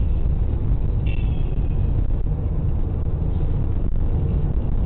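Steady low rumble of a car on the road, engine and road noise heard from the moving vehicle, with a short, faint high-pitched tone about a second in.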